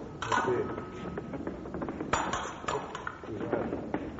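Fencing blades striking and clinking against each other in quick metallic contacts with short ringing, in two flurries: one near the start and one about two seconds in.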